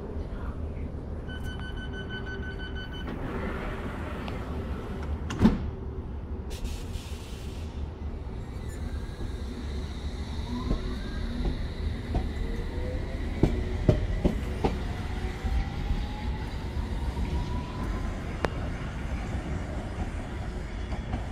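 London Underground S7 Stock train at a platform: a run of door-closing beeps, the doors shutting with a loud knock, then the train pulling away with its traction motors whining up in pitch and wheels clicking over the rails.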